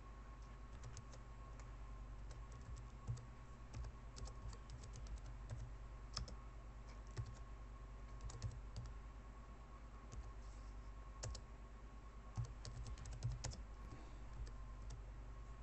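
Faint typing on a computer keyboard: irregular runs of keystrokes with short pauses between them, over a steady low hum.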